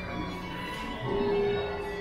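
Instrumental music with held notes, a long sustained note coming in about a second in.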